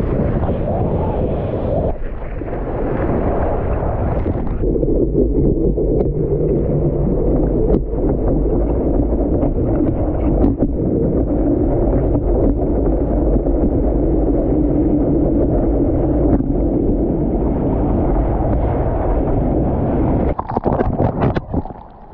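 Wind buffeting and rushing, splashing water on an action camera's microphone as a surfboard rides through a breaking wave. About twenty seconds in the noise turns choppy and crackly, then drops away as the camera goes down into the whitewater.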